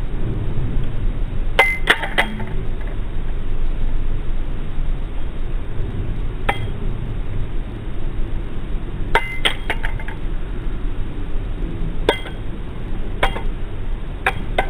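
Balisong trainer being flipped through rollover loops, its metal handles and blade clinking together in short bursts of sharp clicks every few seconds, over a steady low hum.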